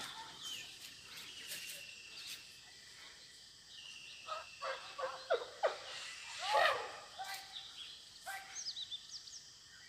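Quiet rural outdoor ambience with scattered faint distant calls, the loudest about six and a half seconds in, and a few short bird chirps near the end.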